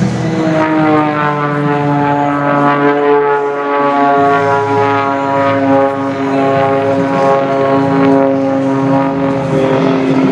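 Propeller airplane flying past, its engine and propeller drone a steady pitched tone that falls slowly in pitch as it goes by.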